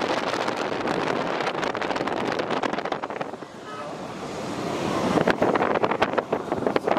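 Wind buffeting the microphone from a moving vehicle, over a steady rush of road noise; it dips briefly about halfway through and then builds up again.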